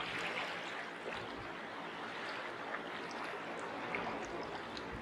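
Gentle small waves lapping in the shallows at a stony shore, with faint trickling and dripping water.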